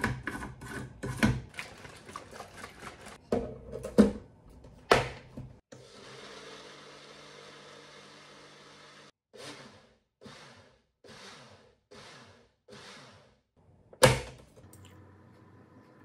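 Personal bullet-style blender: clicks and knocks as the blade lid is twisted onto the cup and the cup is seated on the base. The motor then runs steadily for about three and a half seconds, followed by five short pulses, and there is one loud knock as the cup is lifted off near the end.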